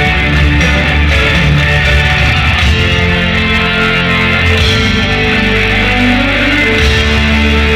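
Symphonic rock band playing live and loud, with sustained chords over heavy bass; the deep bass drops back a little past the middle and comes back in full near the end.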